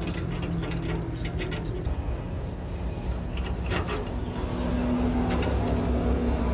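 A vehicle engine running with a steady low rumble that grows louder about halfway through. Over it are light metallic clicks of a spanner on the brake valve's fittings, mostly in the first two seconds.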